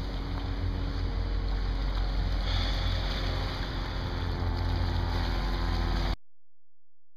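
Wind rumbling on the microphone over water washing against a rocky shore, a steady outdoor noise that cuts off abruptly about six seconds in, leaving silence.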